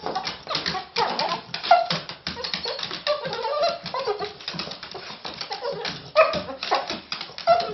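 Cocker spaniel yipping and whining in short, rising and falling cries, over fast, irregular tapping and clicking.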